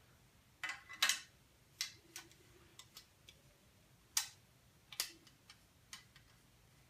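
Sharp metal clicks and taps from a brass trumpet's parts being handled and fitted together during reassembly, about ten irregular clicks with the loudest about a second in.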